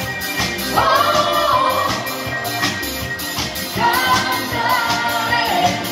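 Live band music with singers: drums and piano backing an upbeat song, with two sung phrases, the second starting about four seconds in.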